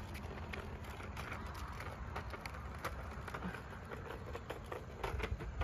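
Kick scooter wheels rolling over rough asphalt: a low steady rumble with many small scattered clicks and ticks.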